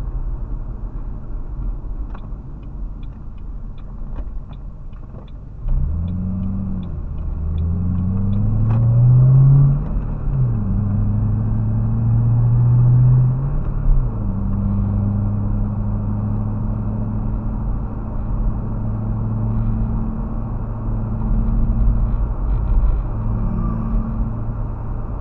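Car engine heard from inside the cabin, pulling away from a standstill and accelerating, its pitch rising and dropping back at three gear changes, then cruising steadily with tyre and road noise. An even ticking, like a turn signal, runs for several seconds as it pulls away.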